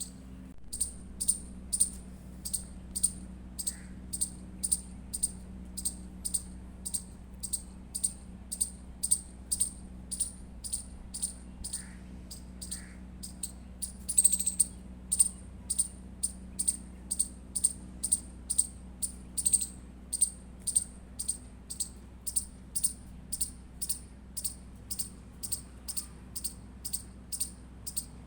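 Indian palm squirrel chirping in a steady, rapid series of short high-pitched calls, about two a second, with a louder burst of chirps about halfway through.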